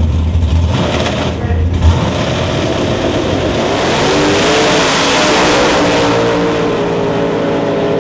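Two drag-radial race cars on the starting line, their engines holding a loud low drone, then launching a few seconds in and accelerating hard down the strip, the engine note rising in pitch and then holding.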